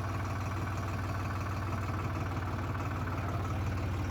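Tractor's diesel engine running steadily at idle, a low even throb with regular firing pulses.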